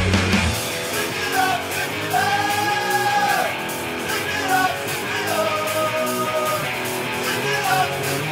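Pop-punk song playing: sung vocal lines, some notes long and held, over guitar. The bass and low drums drop out about half a second in, leaving a sparser passage.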